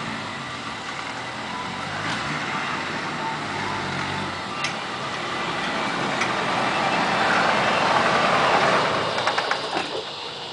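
A motor vehicle driving up, its noise growing louder about seven seconds in, followed by a few sharp clicks near the end.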